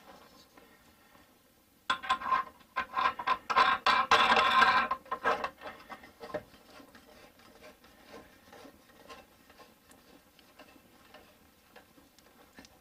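A burst of rapid clattering and knocking as building materials and tools are handled, loudest about four to five seconds in, then faint scattered ticks.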